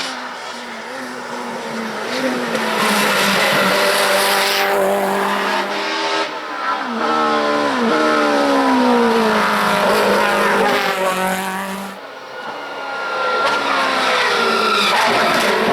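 Hillclimb race car engine running hard, its pitch rising and falling as it accelerates and shifts through the gears, with a quick run of drops and climbs in pitch in the middle. The sound changes abruptly about twelve seconds in, as at an edit, and the engine pitch climbs again.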